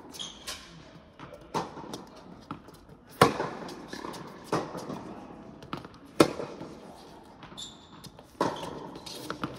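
Tennis rally on an indoor hard court: a string of sharp pops from rackets striking the ball and the ball bouncing, each echoing around the large hall. The loudest strikes come about three and about six seconds in.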